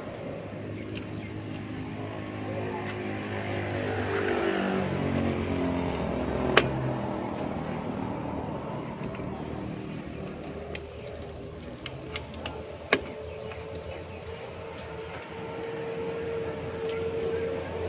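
Vehicle engines running, one falling in pitch about four seconds in and another steady tone in the second half that drops near the end. A few sharp metal clicks stand out: one near the middle of the first half and a small cluster about two-thirds of the way through, typical of brake shoe springs and parts being fitted by hand.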